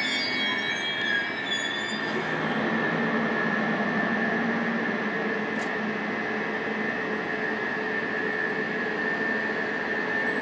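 SBB double-deck passenger train running through the station: its wheels squeal at first, with several high tones that die away about two seconds in, then it settles into a steady rolling noise with a steady high whine as the train moves away.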